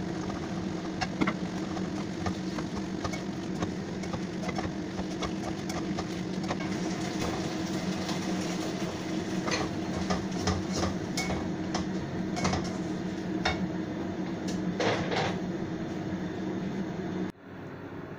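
A spatula scraping and clacking against a nonstick wok during a stir-fry, with a flurry of sharp clicks in the second half, over a steady humming rush from the kitchen range hood fan. The sound drops off suddenly near the end.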